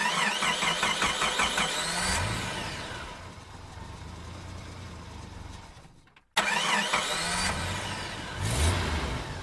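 An engine being cranked and starting, heard twice with a brief cut between: a wavering starter whine and a rising tone, then the engine running with a steady low note.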